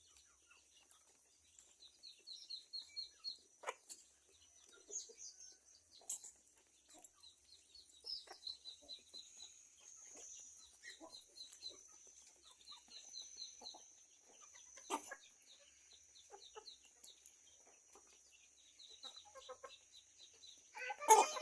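Chickens clucking, with repeated quick runs of short high chirps, and a louder, harsher burst of sound near the end.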